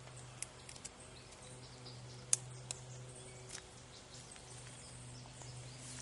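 Light clicks and taps of small camp cooking gear being handled, the sharpest a little over two seconds in, over a faint steady low hum.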